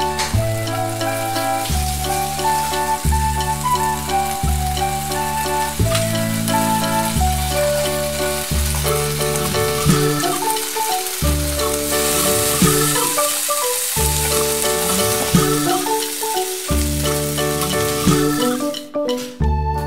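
Bacon sizzling as it fries in a nonstick pan, under background music with a steady bass line. The sizzle is strongest in the middle.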